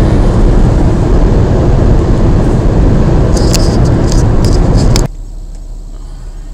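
Steady road and engine noise inside a car cruising at motorway speed, with a few short clicks shortly before it cuts off abruptly about five seconds in, leaving only a quiet low hum.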